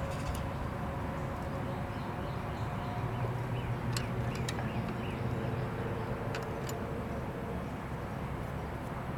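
A few faint, sharp clicks of a steel screwdriver working the contact-breaker points of a Vespa 400 ignition while the points gap is set, over a steady low background hum.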